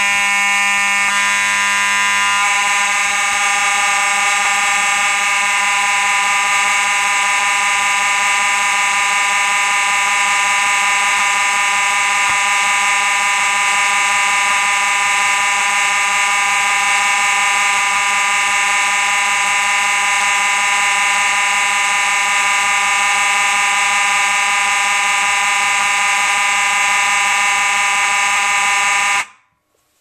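Two Faraday 6226-W mechanical fire alarm horns sounding together with a loud, steady, buzzing blare, the tone shifting briefly about a second in. It cuts off suddenly shortly before the end.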